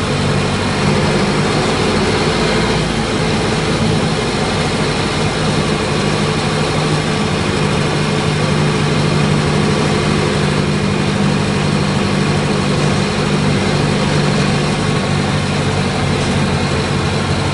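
Mercedes-Benz OF-1722M bus's six-cylinder diesel engine running steadily at an even speed.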